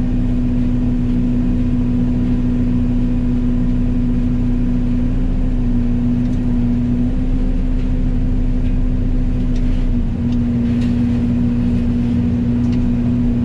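Yanmar ViO80 excavator's diesel engine and hydraulics running steadily under load, driving a Fecon FMX36 forestry mulching head, with a strong steady hum. The hum dips briefly about ten seconds in.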